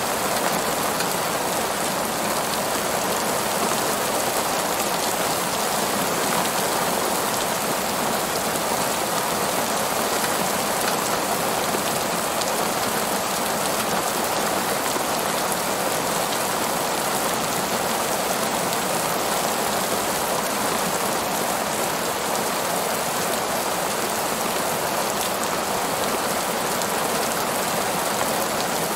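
Heavy rain falling steadily on a parking lot, an even, unbroken hiss of drops on pavement.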